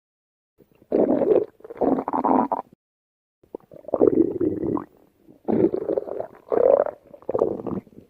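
A person's stomach growling in a run of about six separate rumbles, starting about a second in, with short gaps between them.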